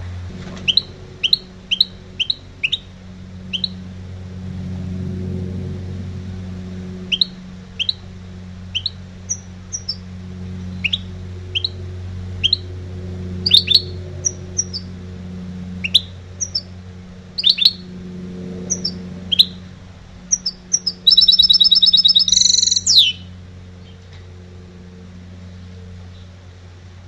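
Caged goldfinch hybrid (mixto) singing: a run of short, sharp chirps, then a loud buzzy trill about 21 seconds in that ends in a falling note.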